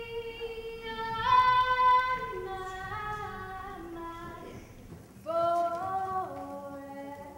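A female voice singing long held notes that step from one pitch to another, louder about a second in and again about five seconds in.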